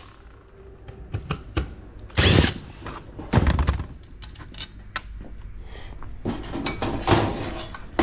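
Clunks, clicks and clatter of sheet-metal heater-kit parts and tools being handled on a metal workbench, with two louder thunks about two and three and a half seconds in and busier rattling near the end.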